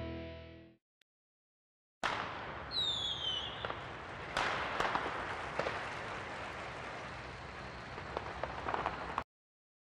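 The tail of guitar music fades out, and after about a second of silence come fireworks. A falling whistle is followed by several seconds of crackling with scattered sharp pops, which cuts off suddenly near the end.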